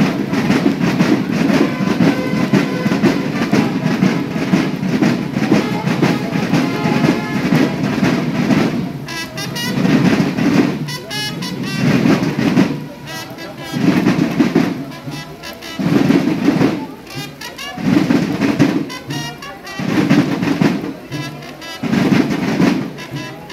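A brass band with drums plays outdoors. For the first several seconds it holds dense brass chords. From about nine seconds in it settles into a slower beat, with loud low notes coming roughly every two seconds.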